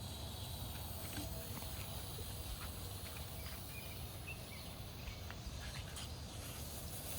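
Lit smoke-and-strobe bomb (Hot Fireworks Complex Galaxy Bomb) burning with a steady high hiss that starts at once as it ignites.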